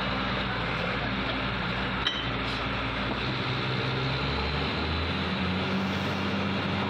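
Borewell drilling rig running steadily under load while it drills, a constant loud mechanical din whose low hum changes pitch about four and a half seconds in. A single sharp metallic clink comes about two seconds in.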